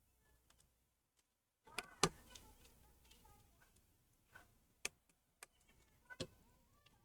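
About eight faint, scattered small clicks and light taps from tools and parts being handled during reassembly of an iPhone 8, the loudest about two seconds in.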